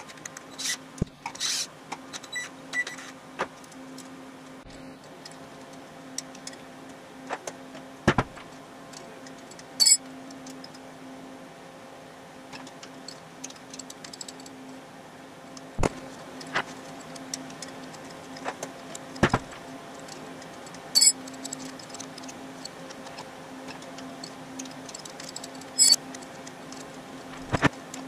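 Hand tools working on engine parts during a teardown: scattered sharp metallic clicks and clinks, one every few seconds, over a steady low hum.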